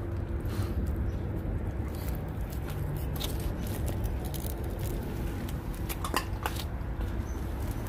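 An 8-week-old Lycan Shepherd puppy chewing a raw chicken leg quarter, with scattered wet crunches and clicks of bone. The sharpest come a few seconds in and again about six seconds in. A steady low hum runs underneath.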